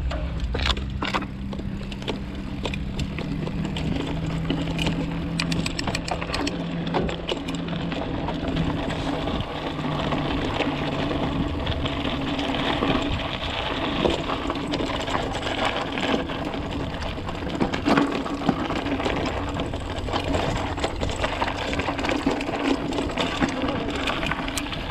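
Mountain bike riding over a dirt trail: steady tyre and rolling noise with many irregular clicks, knocks and rattles from the bike. A low steady hum fades away over the first ten seconds or so.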